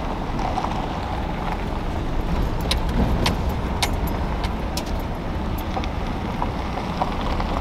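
Pickup truck driving on a gravel dirt road, heard from inside the cab: a steady rumble of engine and tyres, with a handful of sharp clicks in the middle.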